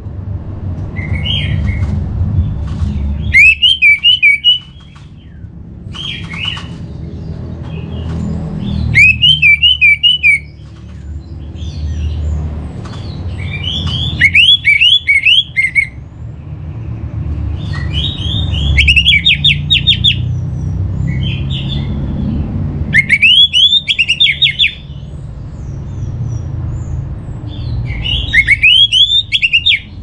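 Orange-headed thrush singing six short phrases of quick, rising-and-falling notes, each about a second long and roughly five seconds apart, over a steady low rumble.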